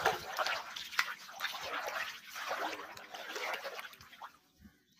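River water sloshing and splashing against the hull of a wooden boat, in repeated surges about every half second, dying away near the end.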